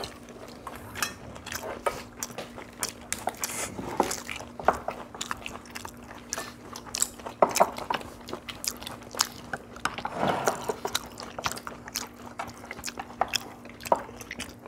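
Several people eating at a table: chewing and crunching food, with many short clicks of chopsticks and spoons against ceramic bowls and plates. A thin steady low hum runs underneath.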